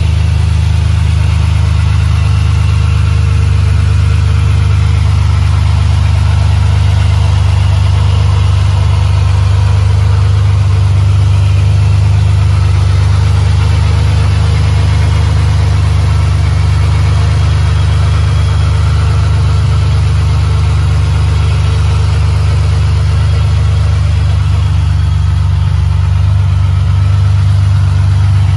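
Ferrari 550 Maranello's 5.5-litre V12 idling steadily while warming up after a cold start, heard close over the open engine bay.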